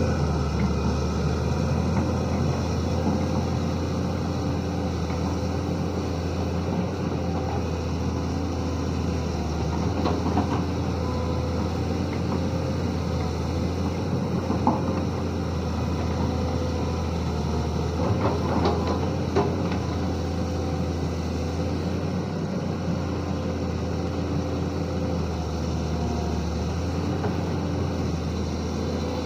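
Sany SY215C excavator's diesel engine running steadily under work, with a few brief knocks partway through.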